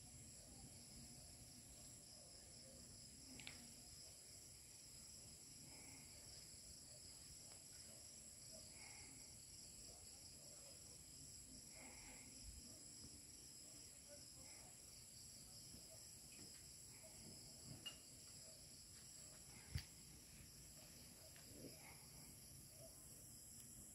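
Faint night-time chorus of crickets trilling steadily at several high pitches, with a softer call repeating about every three seconds. A few sharp clicks stand out, the loudest about twenty seconds in.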